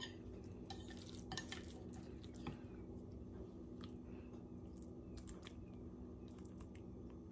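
Faint, scattered clinks and scrapes of a metal spoon against a bowl and a glass baking dish as stuffing is scooped and pressed into a raw chicken breast, over a steady low hum.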